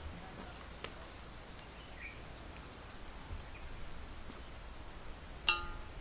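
A knife knocks sharply against a stainless steel bowl near the end, giving a short metallic ring. Before it there is only a faint outdoor background with a small click about a second in.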